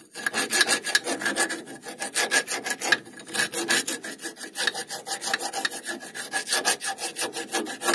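Round file rasping quickly back and forth inside the rusted guide-pin bore of a brake caliper, scraping out rust, with a short pause about three seconds in.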